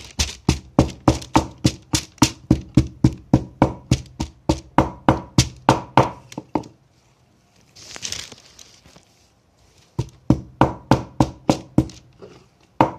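Garlic being pounded with a wooden pestle in a wooden mortar: quick, even knocks about four a second. The pounding stops for about three seconds midway, then starts again.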